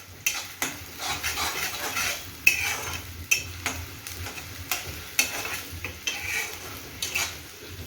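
Chopped onion frying in hot oil in a cast-iron wok on a high flame: a steady sizzle while it is stirred, with sharp scrapes and taps of the stirring utensil on the metal every second or so.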